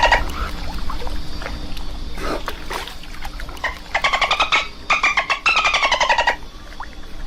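Dolphin burst-pulse calls: rapid trains of clicks that run together into buzzing squawks. There are two longer bursts around the middle, the second falling slightly in pitch, with scattered single clicks between them.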